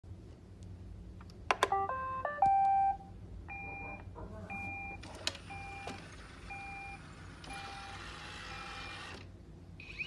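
iRobot Roomba 805 robot vacuum starting up: a click or two, a short electronic start-up tune, then a beep about once a second as it backs off its home base, with its motors running from about halfway through and stopping near the end.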